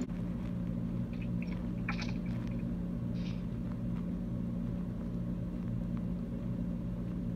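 A steady low hum of background noise on a voice call line, with a few faint short sounds about two and three seconds in.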